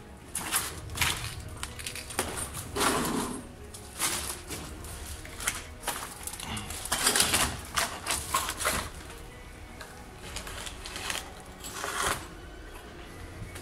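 Footsteps crunching on broken concrete and rubble, with irregular knocks and scrapes as he handles a wooden beam against the wall.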